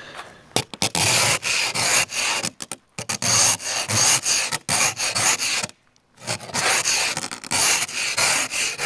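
Ice scraper scraping ice and snow off a car window in repeated rasping strokes, with a few short pauses.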